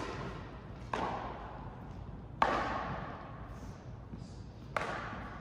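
A ball struck sharply four times in a rally, roughly a second or more apart, the third hit the loudest, each hit ringing on in a hall's echo.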